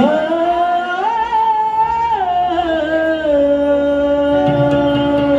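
A singer's long held note opening a Konkani Jakhadi gan (Ganesh invocation): the voice swoops up into the note, rises a step about a second in, slides back down and holds, over a steady low drone.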